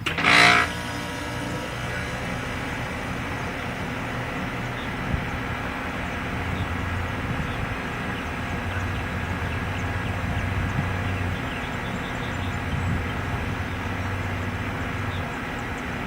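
A brief loud screech just after the start, then a motor vehicle's engine running steadily with a low hum.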